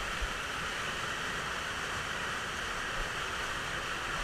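Steady rush of river water pouring over rocks, an even hiss with no breaks.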